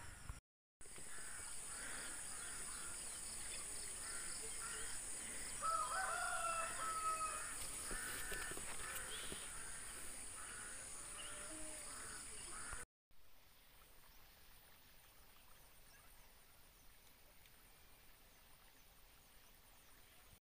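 A rooster crowing once, about six seconds in, over a steady high insect buzz. The buzz cuts off suddenly about thirteen seconds in, leaving faint outdoor background.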